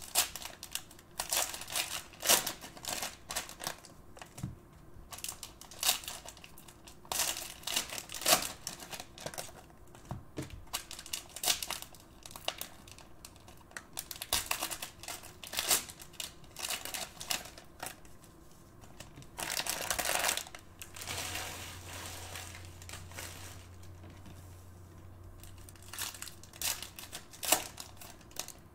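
Cellophane wrappers of Mosaic basketball card cello packs crinkling and tearing as they are opened by hand. Sharp irregular crackles come throughout, with a longer run of crinkling about twenty seconds in.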